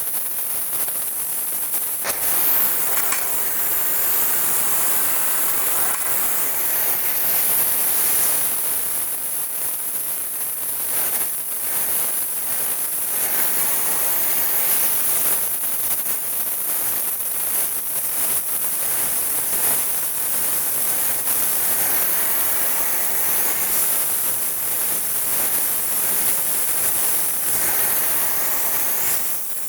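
Gas brazing torch flame hissing steadily while pipe joints are brazed.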